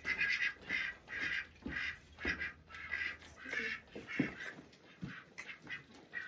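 Ducks quacking over and over, short raspy calls about two to three a second that thin out after about four seconds, with a few knocks.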